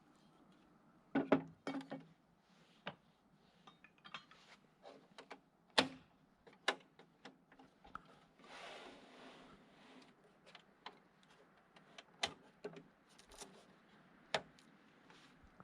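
Wooden boards and small hardware being handled on a workbench: irregular knocks and clicks, the loudest about a second in and near six seconds in, with a brief soft scrape about eight seconds in.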